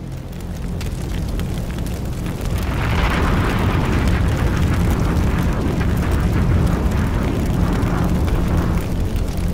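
Forest fire burning: dense crackling over a deep, steady rumble, swelling louder about two and a half seconds in.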